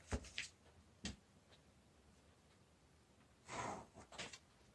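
Faint clicks and taps of a clear plastic set square and a pen being handled on paper, with a soft breath out about three and a half seconds in.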